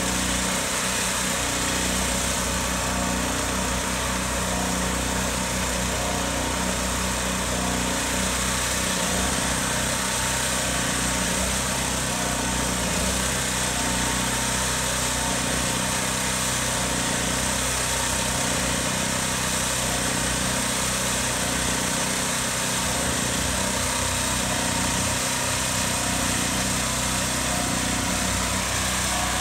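Small engine running steadily at a constant speed, an even hum that doesn't change.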